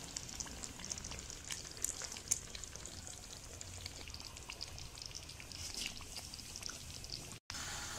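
Thick creamy chicken gravy simmering in a wok, with soft bubbling and small scattered pops and crackles. The sound is faint and cuts out for an instant near the end.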